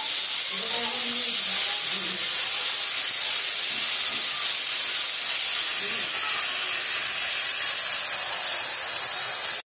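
Ground spice paste sizzling in hot oil in a wok as it is stirred with a metal spatula: a loud, steady hiss that stops suddenly near the end.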